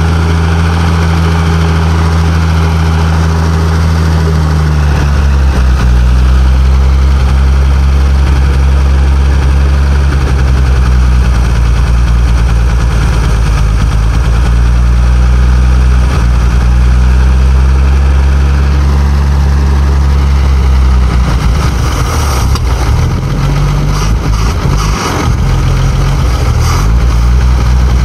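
1948 Bedford truck's six-cylinder engine running on fuel poured from a bottle down the carburettor throat; it will not yet run off its tank, which the owner reckons must be full of water and old stale fuel. Its speed shifts several times and turns uneven near the end.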